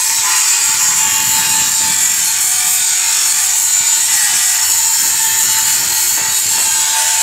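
Stick arc welding: the electrode crackles and hisses steadily as it welds an iron scroll to steel gate bars.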